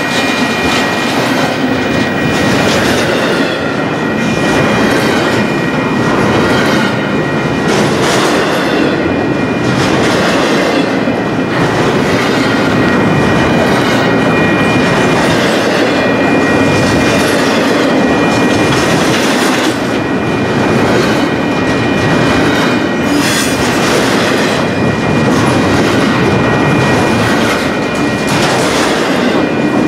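Freight train of double-stack intermodal well cars and autorack cars passing at close range: a steady loud rumble of steel wheels on rail, with repeated clickety-clack over the rail joints and a steady high squeal from the wheels.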